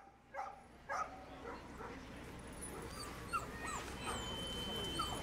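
Dog barking three times in the first second, then whining with short high yelps that rise and fall in pitch.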